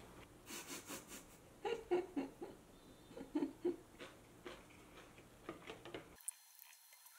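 Chopsticks clicking against a ceramic plate and the plate being handled and set down on a table, with a few short soft giggles about two and three and a half seconds in.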